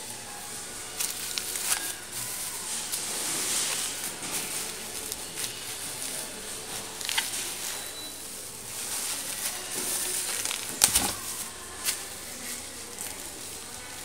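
Bubble wrap rustling and crinkling as it is handled and pulled back from a boxed unit, with a few sharp crackles, the loudest about eleven seconds in.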